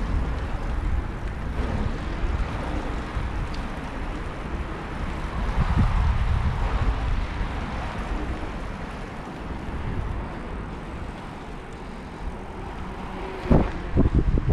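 Wind buffeting the microphone of a camera on a moving bicycle, with a steady rumble from the tyres on asphalt. A few sharp knocks come near the end.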